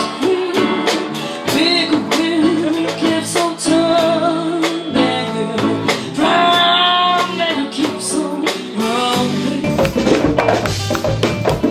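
Live band music with a woman singing long, held melodic lines into a handheld microphone over guitar and drums. Near the end the band gets fuller, with bass and quick hand-drum strokes coming in.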